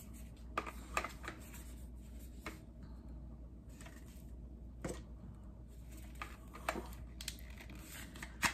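Scattered clicks and rattles of plastic as a toy gel ball blaster and its battery pack are handled, ending with a sharp click as the battery pack snaps onto the blaster.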